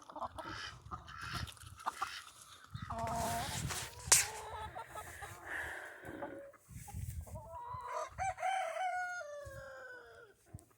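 A rooster crowing, a long call that falls in pitch as it trails off near the end, with chicken clucks earlier and a sharp knock about four seconds in.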